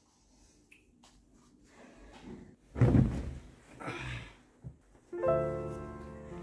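Plastic water bottle popping with a loud crackle a little under three seconds in, and a smaller crackle about a second later. Piano music starts near the end.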